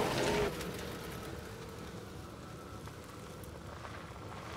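Tyres of a Ford F-150 Lightning electric pickup rolling through puddles and mud, a steady splashing hiss that eases after the first half-second.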